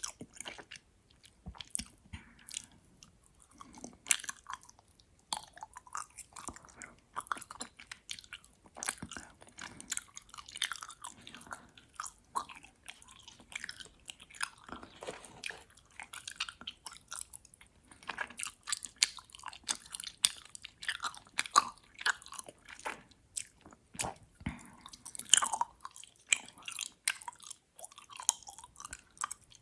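Close-miked mouth chewing gummy worms: soft, sticky, wet smacks and clicks of jaw and lips working the chewy candy, coming irregularly and without pause.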